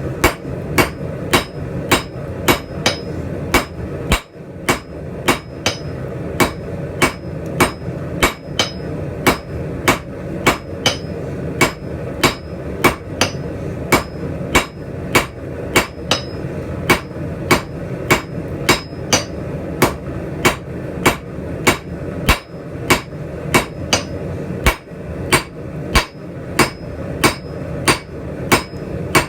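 Hand hammer striking hot steel on an anvil in a steady rhythm of about one and a half blows a second, each with a short ring, drawing out the reins of a scrolling-tong blank. A steady noise runs underneath.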